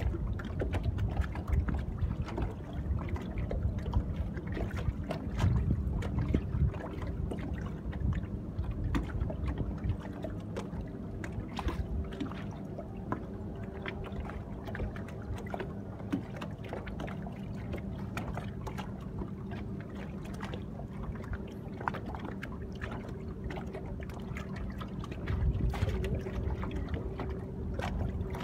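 Small waves lapping and slapping against a boat's hull in short irregular splashes, over a steady low hum. Gusts of wind buffet the microphone now and then.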